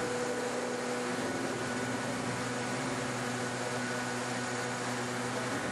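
Spindle of a Helios Zeus CNC machining center milling dry into marble: a steady machine hum with a few held tones over the hiss of the cutter grinding stone.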